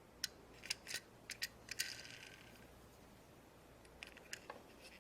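Hands handling a plastic toy egg and a die-cast toy car: a quick series of light clicks and taps, with a short crinkling rustle about two seconds in and a few more taps near the end.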